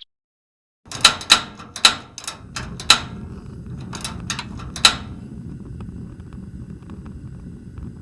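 A string of about nine sharp knocks or clicks, irregularly spaced over some four seconds, over a steady low rumble that goes on after the knocks stop. It starts about a second in, after a moment of silence.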